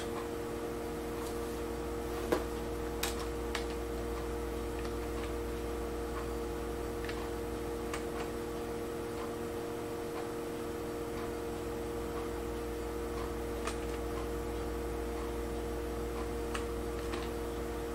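Steady electrical hum with a few scattered clicks of computer keyboard keys, each a second or more apart, as a list is stepped through.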